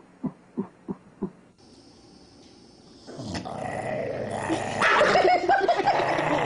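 A small dog yaps four times in quick succession. After a short pause, a dog chewing on a bone growls and whines in long, wavering, drawn-out sounds that grow louder toward the end.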